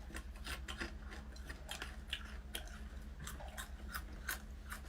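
Close-up chewing of crunchy fried insects: a quick, irregular run of dry crunches and crackles, several a second.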